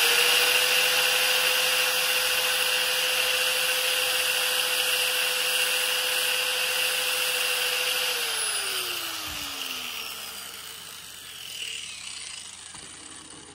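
Handheld side grinder running at speed while a piston ring's end is held against its disc to file the ring gap: a steady motor whine under a harsh scraping hiss. About eight seconds in it is switched off and winds down, the whine falling in pitch and fading over a few seconds.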